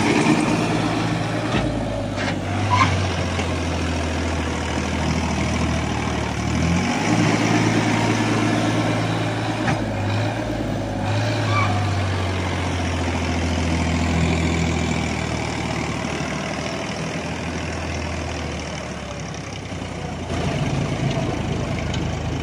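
Sonalika DI-740 III tractor's three-cylinder diesel engine running under heavy load as it pulls a loaded trolley through loose sand. The engine note shifts up and down a few times, most clearly about seven seconds in.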